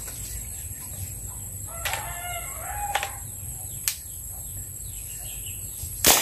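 A rooster crows about two seconds in, with a few sharp clicks around it. Near the end a homemade shotgun-style marble gun fires once with a loud, sharp crack.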